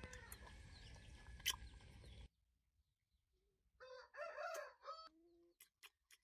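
Quiet outdoor background with faint bird chirps that cuts off abruptly about two seconds in. After a gap, a rooster crows once, about a second and a half long, followed by a few faint clicks near the end.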